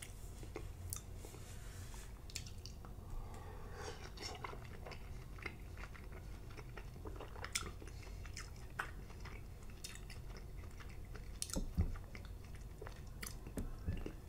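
Wet chewing and lip-smacking of slimy cooked spinach: irregular soft clicks and smacks throughout, with a couple of louder knocks near the end.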